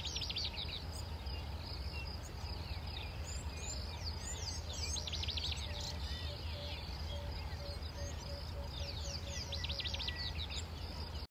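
African wild dogs twittering: three bursts of rapid, high-pitched, bird-like chirps, the social call of a pack greeting and milling together. A steady low hum runs underneath.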